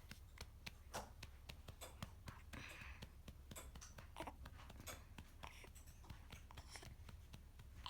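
Faint, irregular soft taps and rustles of a hand patting a baby's back to bring up a burp.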